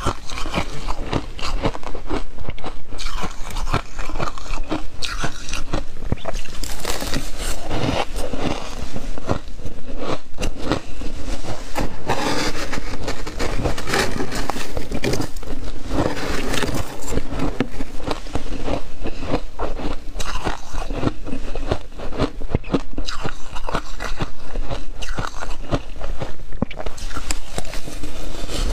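Freezer frost ice crunching and being chewed close to the microphone, a dense, continuous crackling, with frost scraped and scooped from a plastic freezer drawer.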